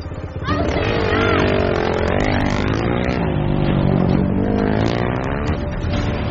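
Dirt-bike motorcycle engine revving hard, its pitch rising and falling with the throttle, cutting in loudly about half a second in.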